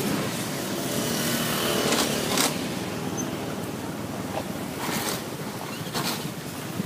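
Several motor scooters running slowly together, heard from the back of one, with engine and road noise and a few sharp knocks along the way.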